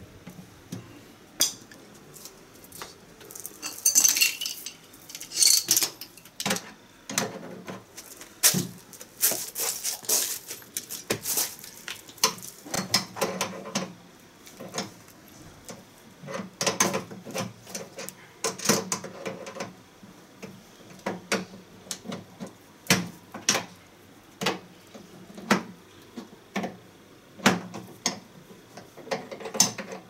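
Irregular metallic clinks and clatter of wrenches working the brass flare nuts on an air conditioner outdoor unit's service valves, as the copper refrigerant lines are tightened.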